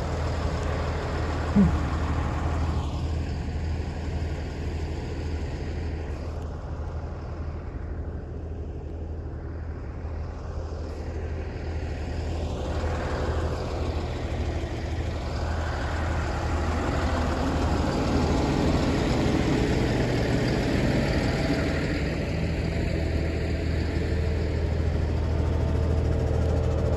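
Tractor engine running steadily, its level rising somewhat over the second half. A single short sharp knock comes about a second and a half in.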